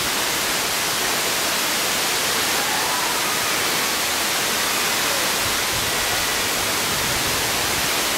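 Steady, even rushing of Tinago Falls, water pouring down a rock face into the plunge pool below.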